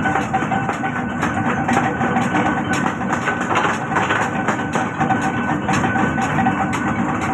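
Forging-shop machinery making wheel bolts: steady loud machine noise with a faint hum and a rapid, continuous run of metallic knocks.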